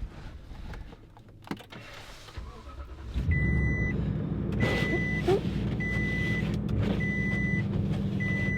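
A vehicle engine starts about three seconds in and settles into a steady idle. A dashboard warning chime sounds alongside it, a single high beep repeating about once a second.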